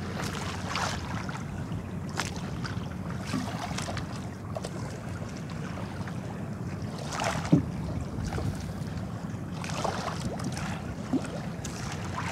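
Wind on the microphone and water sloshing around a small fishing boat at sea, over a steady low rumble, with a few brief noisy swells.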